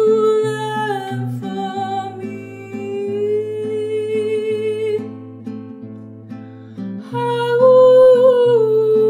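A woman singing long held notes over a fingerpicked nylon-string classical guitar. Her voice glides down about a second in, drops away around five seconds in, and comes back louder about seven seconds in.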